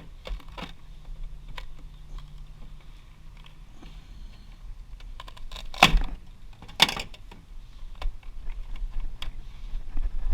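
Small metal clicks and rattles from parts of a server blade being handled and taken apart, with two louder metal knocks about six and seven seconds in.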